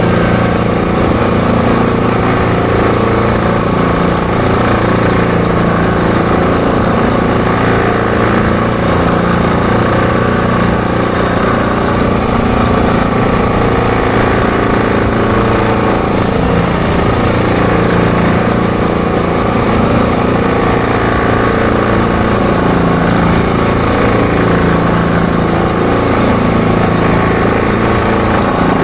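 ATV engine running steadily at cruising speed during a ride, its drone holding an even pitch and level throughout.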